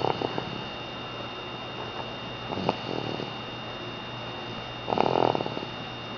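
Snoring in sleep: three snores about two and a half seconds apart, one per breath, the last the longest and loudest.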